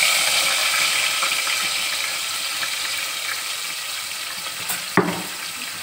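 Ginger-garlic paste sizzling in hot oil in an aluminium pot: a steady hiss that slowly dies down, with a single knock about five seconds in.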